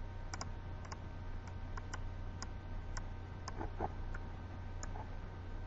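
Computer mouse clicking, a dozen or so short irregular clicks, over a steady low hum.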